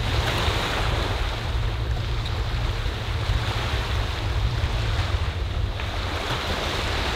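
Small sea waves washing steadily onto a rocky, stone-covered shore, with wind rumbling on the microphone.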